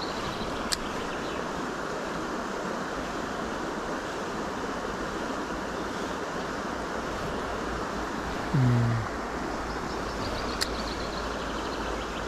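Steady rush of a fast-flowing river. Two sharp clicks come, one under a second in and one near the end, and a brief low tone sounds about eight and a half seconds in.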